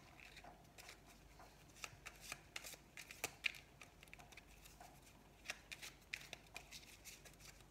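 A deck of oracle cards being shuffled by hand: faint, irregular clicks and slides of the cards against each other.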